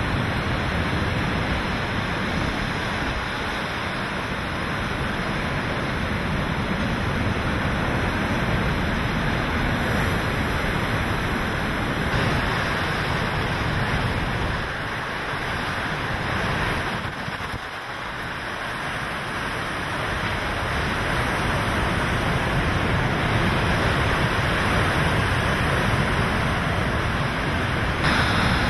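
Hurricane-force wind and wind-driven rain: a loud, steady rush of noise that eases briefly past the middle and builds again near the end.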